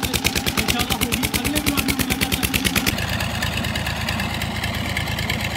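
Engine chugging with rapid, even putts; about three seconds in it changes suddenly to a farm tractor's diesel engine idling steadily.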